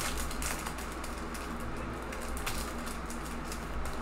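Foil wrapper of a football trading-card pack crinkling and tearing as it is opened and pulled off the cards, with scattered short crackles, over a steady low hum.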